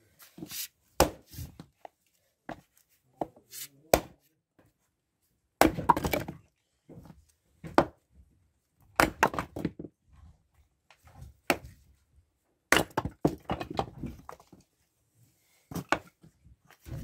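Fiskars X17 splitting axe chopping dry firewood on a chopping block: a series of sharp wooden knocks, about eight in all, a second or two apart, as pieces split off.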